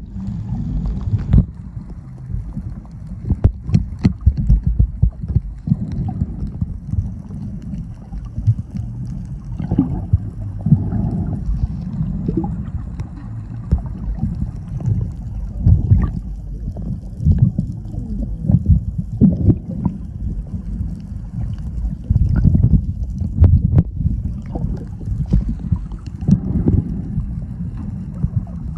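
Muffled underwater noise: an uneven low rumble of water moving against a submerged phone, with frequent irregular clicks and knocks.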